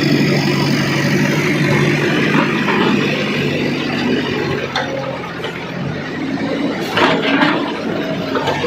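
Heavy diesel engine running steadily under load, with brief knocks and clatter about five and seven seconds in.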